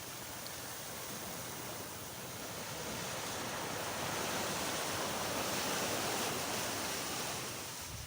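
Sea waves washing onto a sandy beach, the rush of surf swelling over a few seconds and then falling away near the end.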